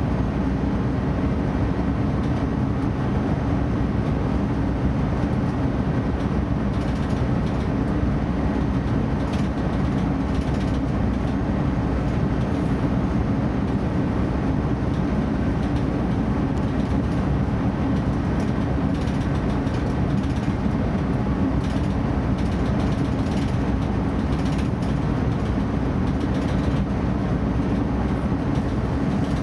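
DB Class 633 PESA Link diesel multiple unit on the move: a steady, unbroken train running noise with most of its weight in a low drone of engine and wheels on rail.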